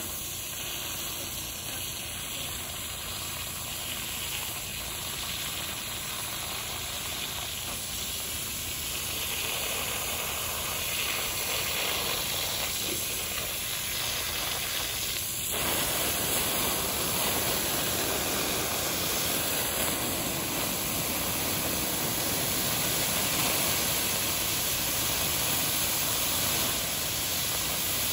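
Water from a garden hose spray nozzle hitting molten-poured aluminum that is still hot in the sand, hissing and sizzling into steam as the casting is quenched. The hiss is steady and grows fuller and a little louder about halfway through.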